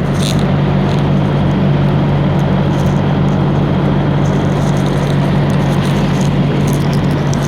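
Diesel engine running steadily at idle, a loud, even low drone with constant tone.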